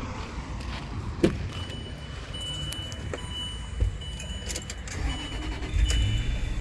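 Land Rover LR3's 4.4-litre V8 started and running at idle, a steady low rumble that swells near the end, with a couple of sharp clicks and a high electronic tone that repeats on and off from about a second and a half in. The engine still has a misfire on cylinder 7 and runs a little rough.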